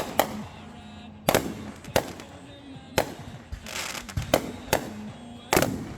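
Fireworks going off: a string of sharp bangs, about one or two a second, with crackling between them about two-thirds of the way through and again near the end.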